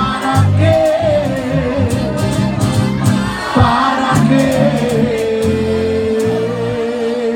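Live band music with a lead singer; the voice ends on one long held note with vibrato in the last couple of seconds, over bass notes and cymbal hits.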